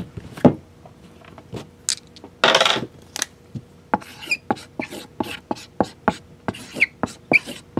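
Shrink-wrapped trading-card boxes being handled: one is set down with a knock and the plastic wrap rustles. Then a Sharpie marker writes on the shrink-wrap in quick short strokes, several a second, some of them squeaking.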